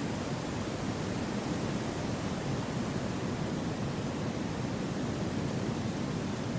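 Wind rushing steadily without gusts or breaks, a deep, even whoosh.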